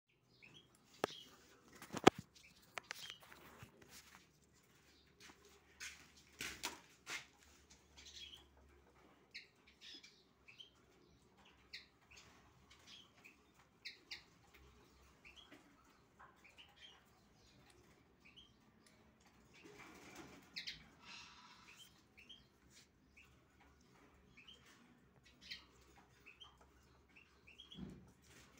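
European goldfinch chick, about three weeks old, giving many short, high begging chirps while it is hand-fed. A few sharp knocks, the loudest about two seconds in, and a rustle around twenty seconds come from the handling.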